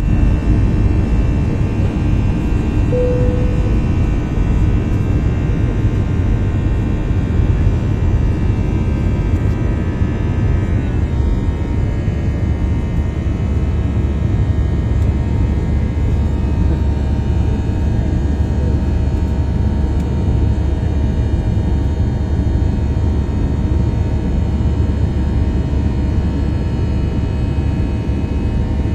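Airplane cabin noise: a steady loud roar with several steady whining tones above it, and a brief higher tone about three seconds in. Around a third of the way through, the whining tones shift and change.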